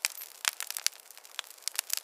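Wood fire crackling in a fireplace: a dense run of sharp, irregular pops and snaps over a soft hiss, a few louder pops standing out.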